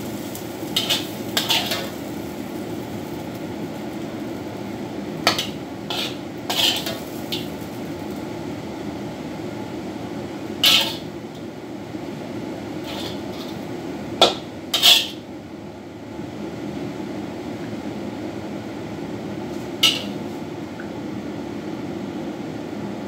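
A metal spatula scraping and clinking against a wok and a ceramic bowl as a braised dish is scooped out, in short separate strokes. The loudest strokes come near the middle. A kitchen extractor fan hums steadily underneath.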